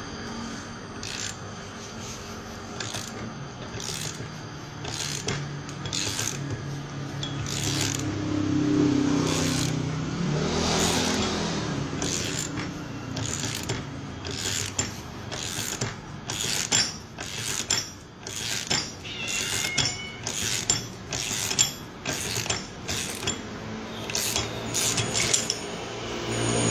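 A hand wrench slowly turning the bolt of a crankshaft bearing puller, drawing a bearing off a scooter crankshaft, with repeated metallic clicks that come closer together in the second half.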